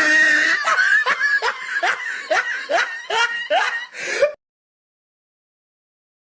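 Laughing sound effect: a person laughing in a quick run of short, rising-pitched bursts, about two or three a second, cutting off abruptly about four seconds in.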